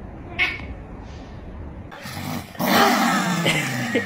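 A chihuahua growling and snarling, starting a little over halfway through. Before it, only a low steady rumble with one short sound.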